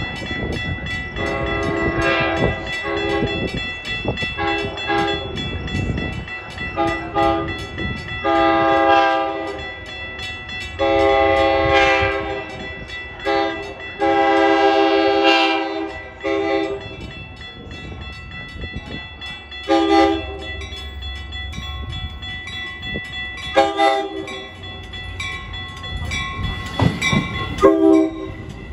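Train horn sounding a long irregular series of short and longer blasts, about fifteen in all, over the low rumble of a train running on the rails.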